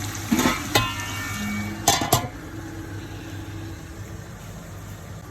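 A metal pot lid clanking as it is set onto a cooking pot: a few knocks, one with a brief metallic ring, then two sharper clanks close together. After that only a steady low hum continues.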